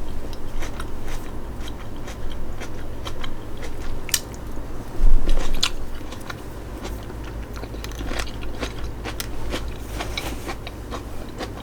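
Crisp lettuce leaves of a stuffed chicken lettuce wrap crunching and crackling in a series of sharp clicks, with the loudest crunch about five seconds in.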